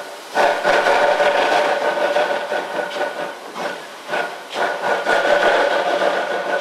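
Steam locomotive hauling a freight train of cement hopper wagons, working hard: a loud continuous rush of exhaust steam for the first few seconds, then separate exhaust chuffs about two a second, with a steady ringing tone underneath.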